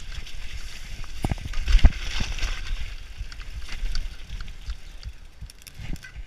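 Mountain bike riding down a rough dirt forest trail, heard from a camera on the rider: a rumbling rush of wind on the microphone, with frequent knocks and rattles from the bike over bumps and a heavy jolt a little under two seconds in.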